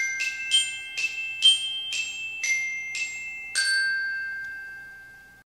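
Intro jingle of bright, glockenspiel-like chime notes struck about twice a second in a short melody, the last note ringing out and fading away.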